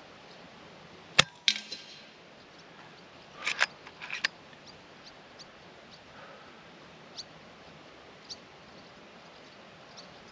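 A PCP air rifle, the FX Wildcat MKIII bullpup, fires a single shot about a second in: a sharp crack, followed a fraction of a second later by a second crack. About two seconds later its side lever is cycled, two pairs of metallic clicks as the next pellet is loaded from the magazine, then a few faint ticks.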